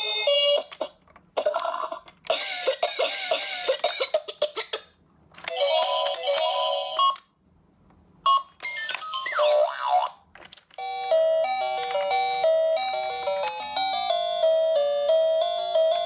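Electronic sound effects and beeping melodies from a toy ambulance playset's built-in sound unit, set off by pressing its buttons: several short electronic jingles cut off abruptly with brief silences between them, a warbling sound, then a longer beeping tune.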